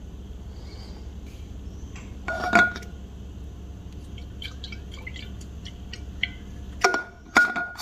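A green tumbler of iced coffee with milk being handled while the coffee is stirred: a sharp clink with a short ring about two and a half seconds in, light ticks, then a few more ringing clinks near the end. Under it runs a low hum that stops near the end.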